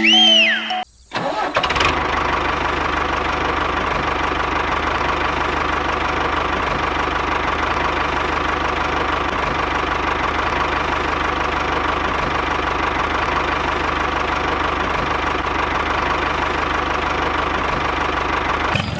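A small motor running steadily, with a constant whine over an even mechanical hum. It starts about a second in, after a short rising-and-falling electronic tone.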